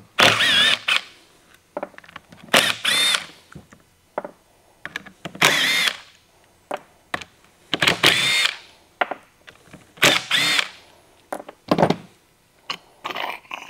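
A cordless power tool with a 10 mm socket spinning bolts out of a VANOS unit's case in about six short bursts, each a brief motor whine, with small clicks and clinks of the loosened bolts and socket between them.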